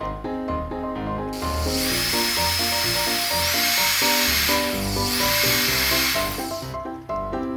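Background music with a steady beat. Over it, a small homemade DC-motor power tool whirs at high speed in two stretches: from about a second in to past the middle, and again from about five seconds in to near the end. Its high whine steps up in pitch partway through the first stretch.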